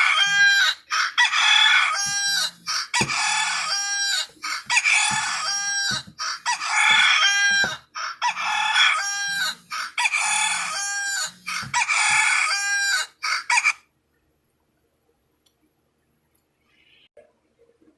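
Old mobile phone's rooster-crow alarm tone: the same recorded crow loops over and over through the phone's small speaker, repeating every couple of seconds, then stops abruptly about fourteen seconds in.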